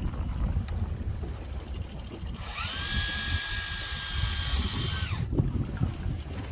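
Electric fishing reel motor winding line, running about three seconds: its whine rises as it spins up, holds steady, then drops away as it stops. Short high beeps come about a second in and again just as it stops, over a steady low rumble of wind and sea.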